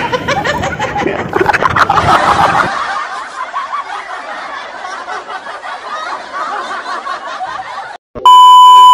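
A group of young women laughing and giggling, loudest in the first three seconds and then fainter. Near the end the audio cuts out briefly, then a loud, steady, high test-card beep of about a second comes in.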